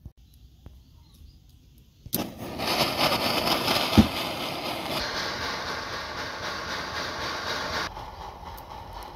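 A few faint handling clicks, then about two seconds in a gas torch flame starts with a sudden loud, steady hiss as it heats a silver ring, with a single sharp knock at about four seconds. The hiss drops in level about eight seconds in.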